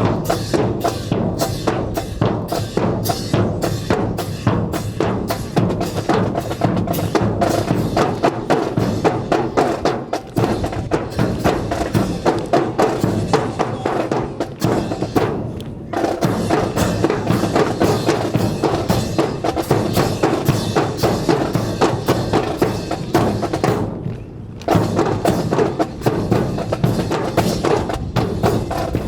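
Drill music with a steady, rapid drum beat of snare and bass drums. It breaks off briefly about 16 s in and again around 24 s in.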